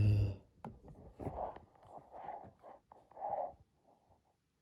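A spoken word trails off, then a few faint clicks and soft murmured sounds follow, as of someone quietly working at a computer in a small room.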